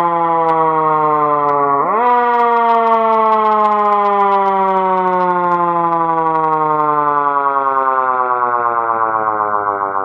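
Fire truck's mechanical wind siren winding down in pitch. It is spun back up sharply about two seconds in, then slowly falls again.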